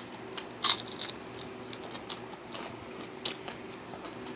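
Eating sounds at a meal: a quick run of crisp clicks and crunches just under a second in, then scattered single clicks, over a faint steady hum.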